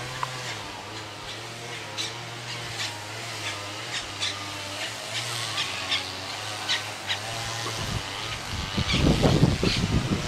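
Birds chirping in short, scattered calls over a steady low engine hum, likely distant traffic. Loud low rumbling on the microphone starts near the end.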